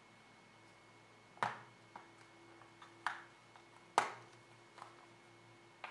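Plastic snap clips of a headphone ear-cup housing clicking as a plastic spudger pries the two halves apart: several sharp clicks with fainter ticks between, the loudest about four seconds in.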